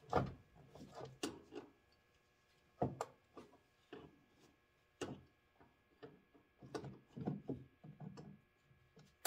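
Irregular clicks, knocks and rubbing from hands working rubber hoses and a spring hose clamp back onto a plastic washer fluid reservoir, with the clamp squeezed and slid back into place.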